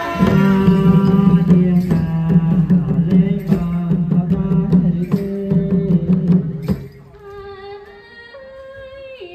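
Khmer Trot dance music: a melody over a steady low drone with repeated percussion strikes. About seven seconds in the drone stops and the music gets quieter, leaving a thinner melodic line.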